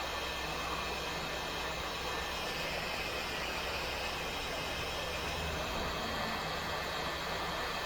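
Hot-air rework station blowing a steady hiss of hot air onto a motherboard chip to melt its solder and lift it off.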